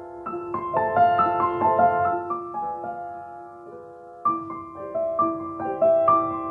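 Piano music: notes and chords struck and left to ring. It dies down around the middle, and a new phrase begins about four seconds in.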